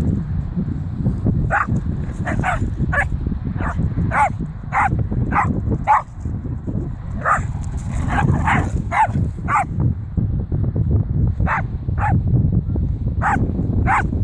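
Dog barking repeatedly: short, separate barks, often two or three close together, with a brief pause past the middle.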